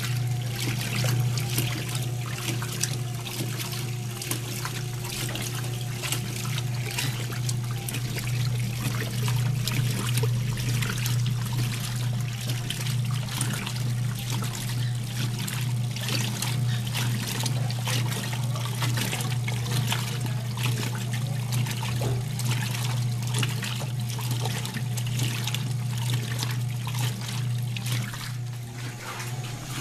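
Washing machines running: a steady motor hum under continuous trickling and splashing of water in the drum.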